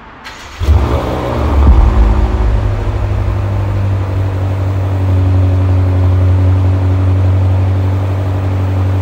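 BMW M3 F80 Competition's twin-turbo 3.0-litre straight-six starting up: a sudden loud flare of revs about half a second in, then settling into a steady idle from the quad exhaust.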